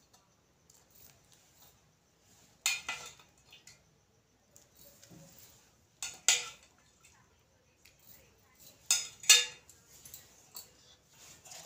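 A steel spoon clinking against a steel bowl of sugar syrup and a steel plate: a handful of sharp clinks spread out, the last two close together and loudest, as syrup is spooned little by little into crumbly rice-flour dough being mixed by hand.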